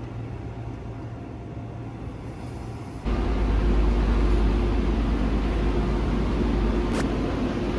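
Steady running noise inside a moving subway car. About three seconds in it cuts to a louder, steady low rumble with a faint constant hum from a station escalator, with a single click near the end.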